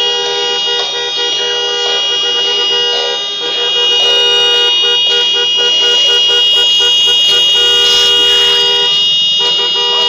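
Several car horns blaring at once in a traffic jam: long, held blasts at different pitches overlapping, with a couple of brief breaks.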